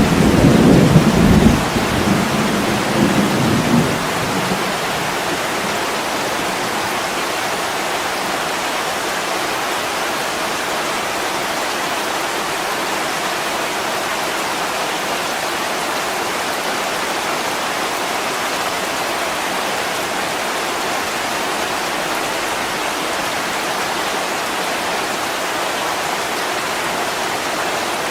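Steady heavy rain on window glass. A loud, low rumble of thunder comes in over it at the start and fades out after about four seconds.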